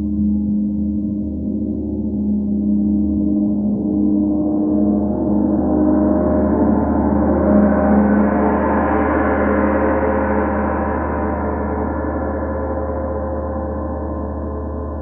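32-inch Sri Yantra gong played with a soft, densely padded Ollihess S186 mallet, the contact barely heard, ringing continuously. Its higher overtones swell and open up toward the middle, then slowly die back.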